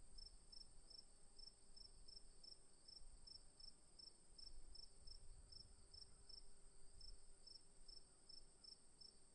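Crickets chirping faintly: one high steady trill runs without a break, while a second, lower insect chirps in short pulses about three times a second.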